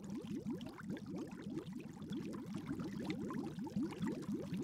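Aquarium water bubbling: a steady stream of small gurgling bubbles, each a quick rising blip, several every second.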